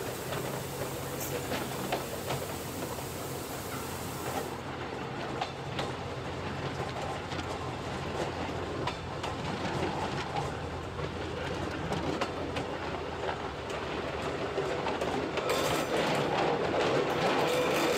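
Narrow-gauge rack railway train running along the line, heard from the cab: a steady low hum and rumble with scattered clicks and knocks from the wheels on the track. It grows louder and brighter about three-quarters of the way through.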